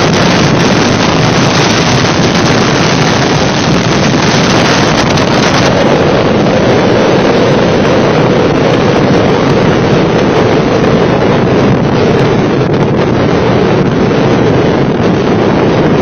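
Storm-force wind blasting over a phone's microphone: loud, steady buffeting noise with no let-up.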